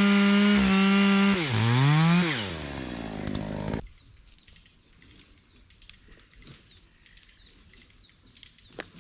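Two-stroke chainsaw running at full throttle, then let off to idle with one brief rev about two seconds in, and cut off just before four seconds. Only faint ticks and chirps follow.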